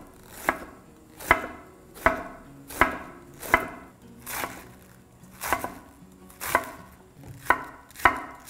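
Chef's knife shredding a head of green cabbage into fine strips on a wooden cutting board: steady, unhurried chops, about one every 0.8 seconds, each a crisp crunch of the blade through the leaves ending in a knock on the wood.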